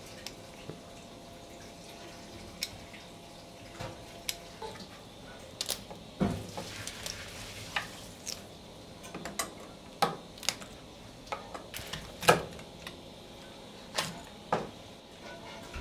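A knife chopping through a whole raw lobster on a cutting board: irregular sharp knocks and cracks of the blade going through shell, with a brief hiss partway through.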